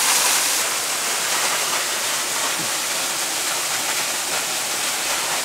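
Waterfall rushing: a steady, even hiss of falling water.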